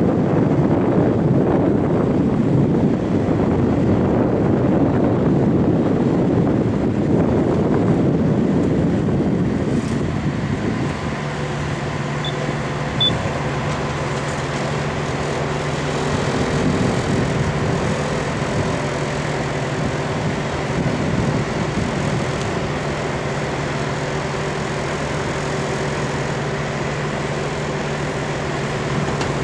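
Kubota compact excavator's diesel engine running steadily while the operator works the arm. There is a louder rough noise over the first ten seconds or so, then a steady hum, with two short high beeps about twelve seconds in.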